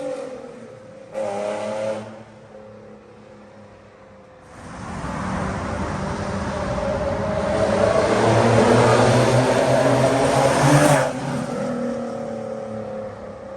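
Nissan 350Z HR's V6 through a loud aftermarket exhaust: a short rev blip early on, then hard acceleration that rises in pitch and loudness to a peak about eleven seconds in, where it cuts off sharply and the engine note falls away.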